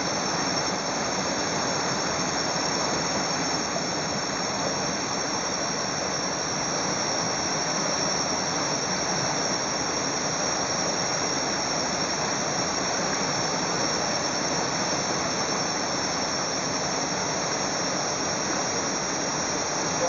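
Shallow, rocky river rushing past steadily, with a thin, steady high-pitched whine over it.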